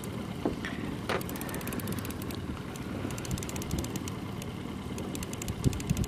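Small outboard motor running steadily at trolling speed, with wind on the microphone. A couple of light knocks come around the first second.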